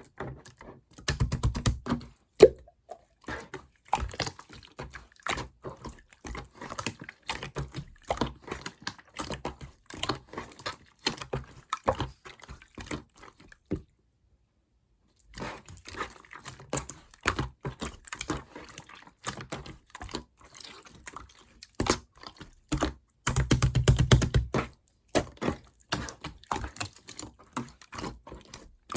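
Clear, colorless slime being worked by hand: a dense run of quick wet clicks and air-bubble pops, with two louder squishing presses, one about a second in and one near the end. A second-long silent break falls in the middle.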